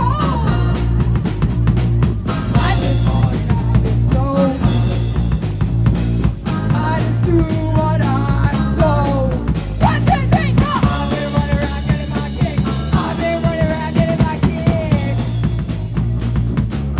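Live rock band playing: drum kit and electric guitars, with a woman singing into a microphone over them.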